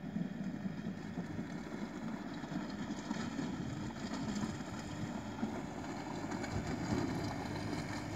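Farm tractor's diesel engine running as the tractor is driven in circles over loose dirt. It gets louder as the tractor comes closer near the end.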